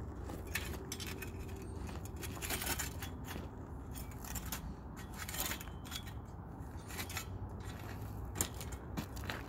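Metal satellite-dish tripod legs being spread apart by hand: repeated clicks and clinks from the leg joints, with a few longer scrapes.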